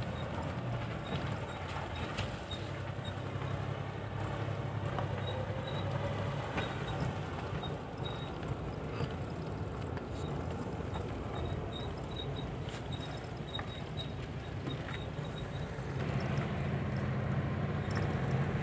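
Vehicle engine running steadily with road noise while driving, a low, even drone that grows somewhat louder near the end.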